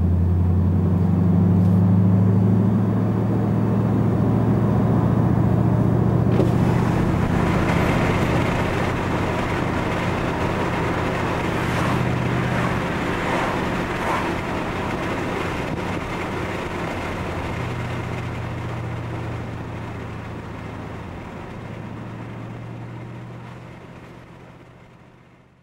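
Ford Mustang GT's V8 engine droning steadily while cruising, heard from inside the cabin, with tyre and road noise swelling after a few seconds. The whole sound fades out near the end.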